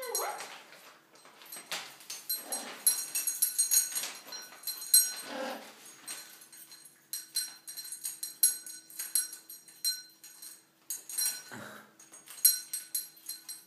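Metal bell and ring toy jingling and clinking in many quick bursts as an Amazon parrot swings and climbs on it, with a few short falling whiny calls from the parrot.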